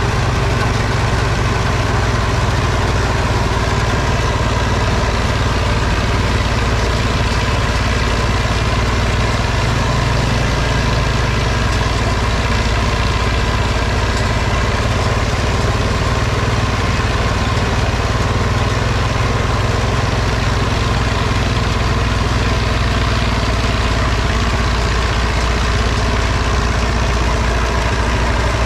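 Case 830 tractor engine running steadily while powering a round baler.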